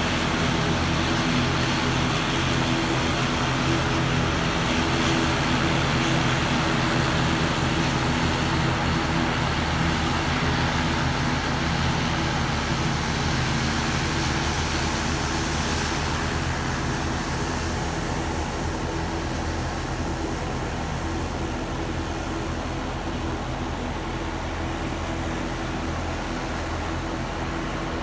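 Propeller airplane's engines running on the runway: a steady noise over a low hum that slowly grows fainter.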